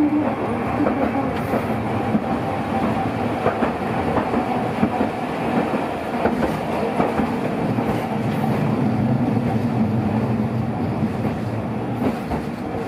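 Hiroshima Electric Railway 1900-series tram running along street track, heard from inside the driver's cab: a steady rumble of wheels on rail with scattered faint clicks.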